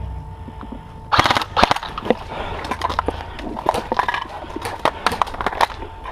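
Crunching footsteps of a player on the move over rough ground: irregular sharp crunches and clicks starting about a second in.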